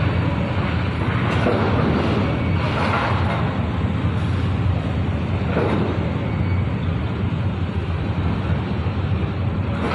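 Steady low mechanical rumble of heavy port machinery under a container gantry crane working a ship's cargo, with a few brief louder rushes of noise.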